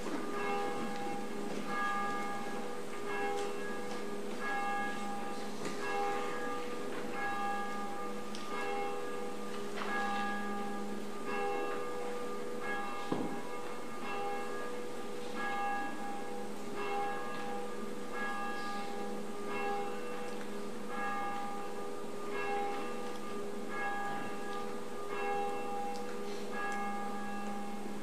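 Church bell ringing, struck about once a second, each stroke ringing on into the next. A single sharp click about halfway through.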